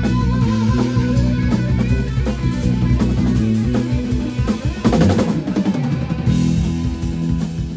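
A live instrumental rock-fusion band of electric guitar, bass guitar and a DW drum kit. The guitar plays a melodic line over the bass and drums, and the drummer plays a fast fill about five seconds in.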